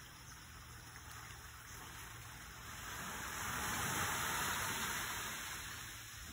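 Small sea waves washing against shore rocks: a hiss of moving water that swells about halfway through and then fades away.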